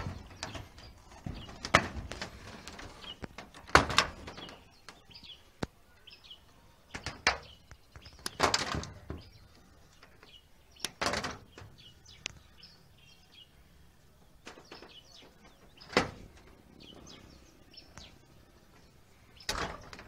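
Irregular sharp knocks, clicks and short scrapes of hand tools and solar-panel cable being handled on a corrugated metal roof, about a dozen in all and spaced unevenly.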